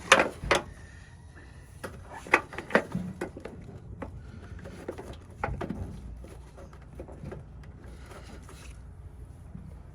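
Metal clicks and knocks as a socket wrench and the battery hold-down bracket bolt are fumbled into line. There are sharp knocks right at the start, a few more about two and a half seconds in, and a lighter group about five and a half seconds in.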